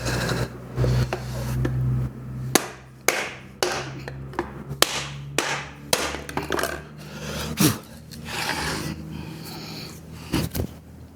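Hammer taps on a length of plastic water pipe used as a driver, seating a new driveshaft carrier bearing: about a dozen sharp knocks, irregularly spaced, with a low hum under the first two seconds.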